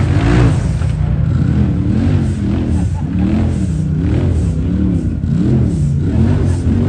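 UTV engine revving up and down again and again, its pitch rising and falling about once or twice a second over a steady low rumble.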